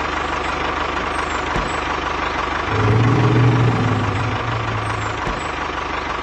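Small engine of a DIY mini tractor running steadily under load, with an even low pulsing. A deeper tone swells in for about two seconds around the middle.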